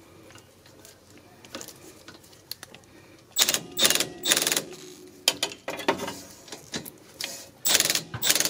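Milwaukee cordless ratchet running in several short bursts on a rear brake caliper bolt, starting about three seconds in and again near the end, after a few seconds of light clicks from handling the tool.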